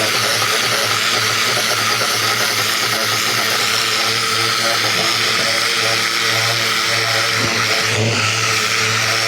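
Ryobi 2000 PSI electric pressure washer running steadily: a constant motor hum under the loud hiss of the high-pressure water spray.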